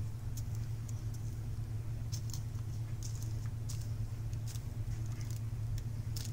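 Small plastic zip-lock bags of diamond-painting resin drills rustling and crinkling in short, scattered strokes as they are handled and set down, the drills shifting inside. Underneath runs a steady low hum.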